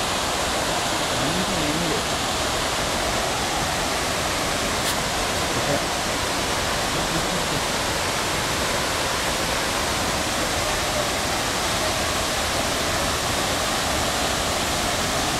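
Abbey Falls, a large waterfall in full monsoon flow, giving a steady, unbroken rush of falling water.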